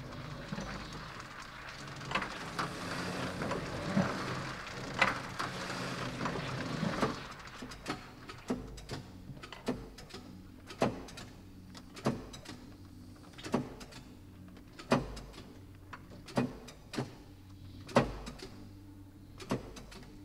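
Printing press machinery running, recorded for an experimental piece. A busy mechanical clatter fills the first few seconds, then gives way to sharp knocks about once a second over a low hum.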